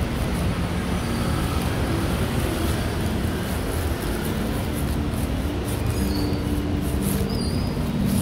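Steady street traffic noise: a low rumble of passing motor vehicles and their engines.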